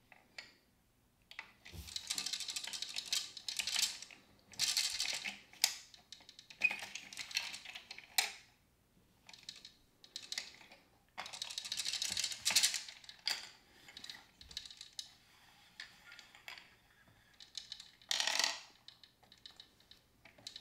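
Plastic gears of a Hasbro Downspin game clicking as they are twisted round with the key, with the plastic tokens inside rattling and clattering. It comes in several bursts of rapid clicking with short pauses between turns.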